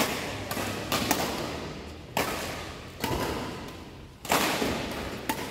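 Badminton rackets striking a shuttlecock during a rally: a string of sharp hits, about one a second, each echoing in a large sports hall.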